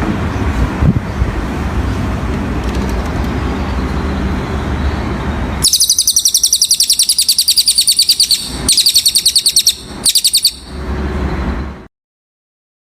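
Low rumbling background noise, then, about halfway in, a cililin songbird's very fast, high-pitched trill in three bursts with short breaks between them; the audio then cuts off abruptly into silence.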